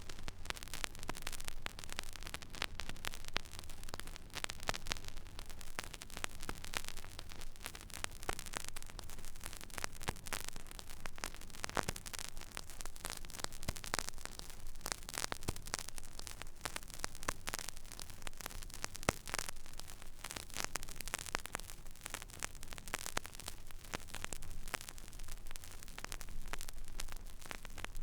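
Turntable stylus riding an empty vinyl record groove: steady surface crackle of many small clicks and pops over a faint hiss and a low hum.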